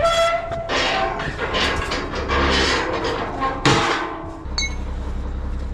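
Steel trailer loading ramps being lifted and folded up by hand, clanking against the trailer's steel frame several times with a metallic ring after the knocks. The loudest clank comes about two-thirds of the way in, and a low steady hum comes in near the end.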